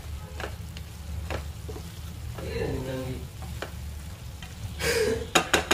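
Mutton pieces in thick masala sizzling in a non-stick kadai as a wooden spatula stirs and scrapes them, the dry-frying stage with the meat almost cooked. A quick run of sharp taps near the end, over a steady low hum.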